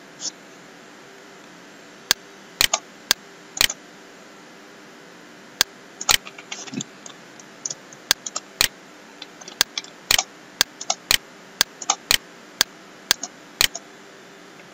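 Computer mouse clicks and keyboard keystrokes, sharp and irregular, some coming in quick runs of several, over a faint steady hum.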